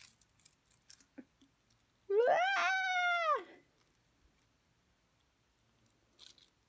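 A cat meowing once, a single drawn-out meow that rises, holds and falls, with a few faint sticky clicks of slime being handled just before it.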